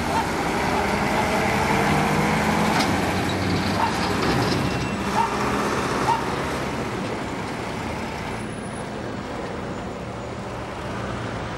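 Road traffic: a heavy diesel lorry passes close by, its engine loudest in the first few seconds and fading away, leaving lighter traffic noise.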